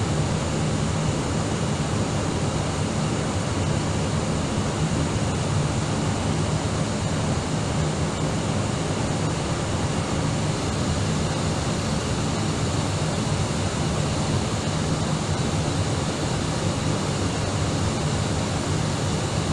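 Steady in-flight cabin noise of an Airbus A319 on approach: rushing air with a low hum and faint high whines from its twin jet engines, unchanging throughout.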